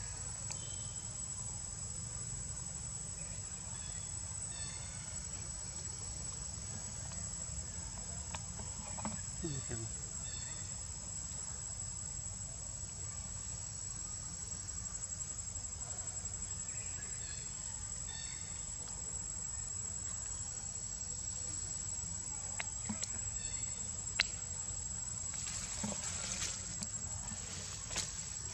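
Insects droning in one steady, unbroken high-pitched tone, with a low rumble underneath. A short rustling burst comes near the end.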